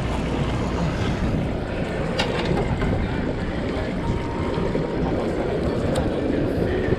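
Wind buffeting the microphone over water moving against a small boat's hull, a steady rushing noise with two short sharp clicks about two and six seconds in.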